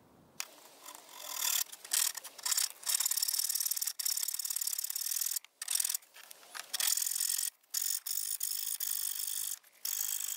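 Hacksaw cutting through aluminum trim: a fast grating of the blade's teeth on the metal, in long runs with brief pauses, starting about half a second in.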